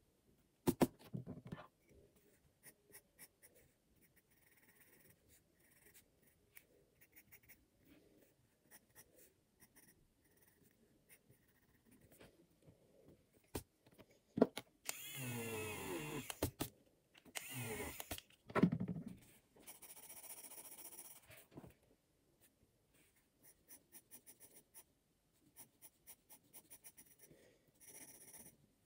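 Graphite pencil scratching and an eraser rubbing on sketchbook paper in short, faint strokes. About halfway through, two louder wavering pitched sounds of unclear source break in.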